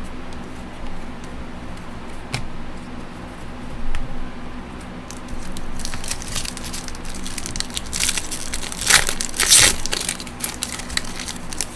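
Trading-card pack wrapper crinkling and cards being handled, with the loudest crackles about nine to ten seconds in, over a steady low hum.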